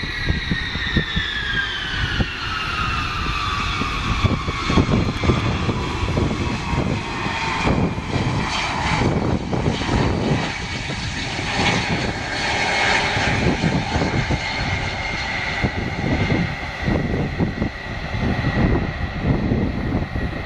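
Ilyushin Il-76's four jet engines whining as the freighter lands and rolls out on an unpaved grass strip. The whine falls in pitch over the first several seconds, over a deep, uneven rumble.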